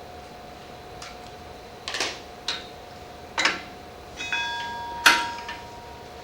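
Metal tools and parts clinking on an indoor exercise bike's brake hardware: about five sharp clinks, a couple of them ringing briefly, the loudest about five seconds in, over a faint steady hum.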